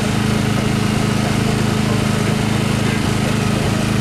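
A small engine running steadily, with a constant low hum that does not change in level or pitch.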